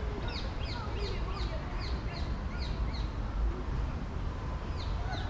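A songbird calling a quick series of short, high, downward-slurred notes, about two or three a second, which stop about three seconds in, with one more near the end. Beneath them runs a steady low rumble of outdoor city background.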